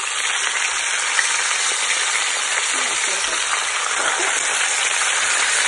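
Two whole sea bream shallow-frying in hot oil in a frying pan, a steady, even sizzle.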